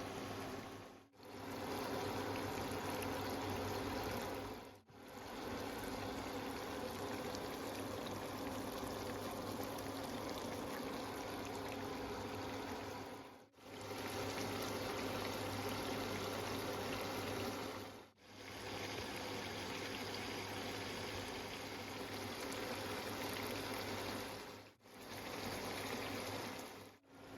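Mutton cooking in a karahi, a steady bubbling and sizzling of meat in its juices and oil, heard in several takes separated by brief breaks.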